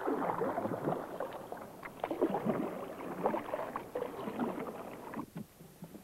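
Water sloshing and gurgling around a small boat as it is rowed.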